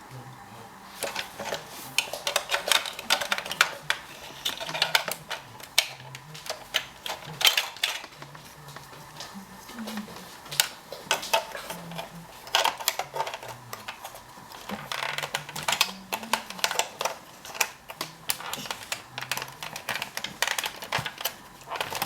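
Hard toy shape pieces clicking and knocking against each other and against a toy airplane shape sorter, as they are handled and pushed into it: many separate small clacks at an uneven pace.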